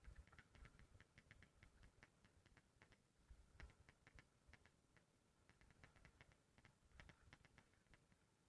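Very faint, irregular clicking, a few clicks a second, over a low rumble.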